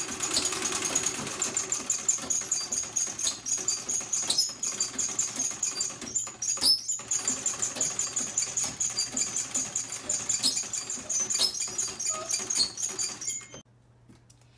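Antique Singer treadle sewing machine running, a rapid, even mechanical clatter from its needle and drive mechanism, which stops about a second before the end.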